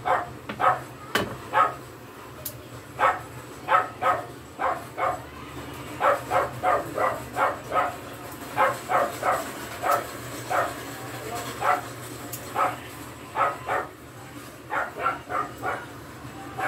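A dog barking over and over: short barks, many coming in quick runs of three or four.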